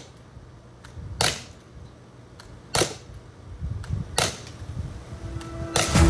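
Mercury Rise TR50 CO2-powered .50-calibre revolver launcher firing powder balls: four sharp reports about a second and a half apart, with fainter clicks between them. Music comes in near the end.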